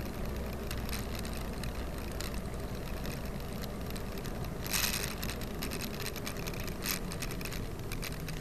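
A car driving, heard from inside its cabin: steady low engine and road rumble with small scattered clicks and rattles. About halfway through there is a short, louder rush of noise, and a smaller one near the end.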